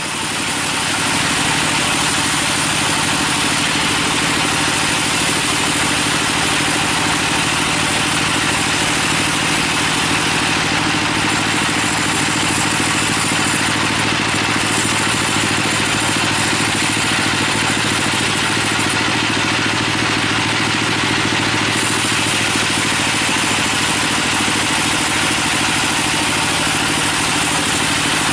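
Log band sawmill cutting lengthwise through a teak log: the steady hiss of the band blade in the wood over the constant hum of the saw's drive.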